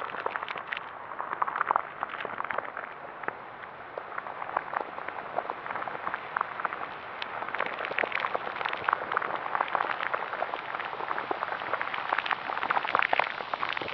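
Dark designed sound effect of dense, irregular crackling and bubbling pops, growing busier and louder in the second half.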